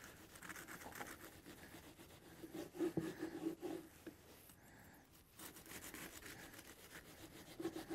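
Knife sawing through a large crusty grilled panino on a cutting board: faint scraping and crunching strokes.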